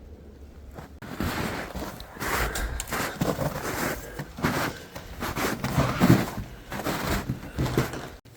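Close, irregular footsteps starting about a second in.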